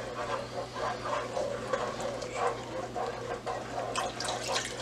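Wooden spoon stirring and scraping a thick flour gravy in an enamel pot, in repeated short strokes, with a little water poured in from a cup near the end.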